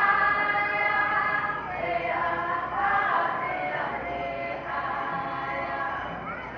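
A group of men and women singing a powwow hand-drum song together, their voices gliding up and down in pitch.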